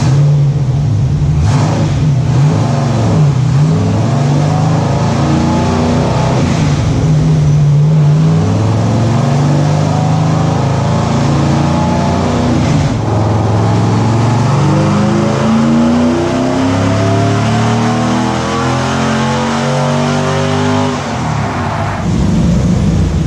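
Sandrail's 6.0-litre LS V8 with LS3 heads running, first at varying revs, then pulling hard with its pitch climbing steadily for about seven seconds before the throttle closes and the revs fall away near the end.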